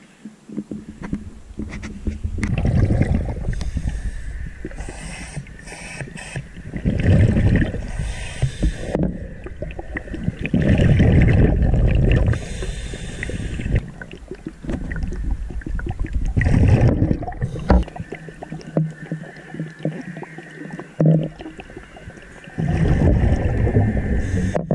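A scuba diver breathing underwater: five loud, low bubbling exhalations through the regulator, about every four to five seconds, with quieter inhalations between.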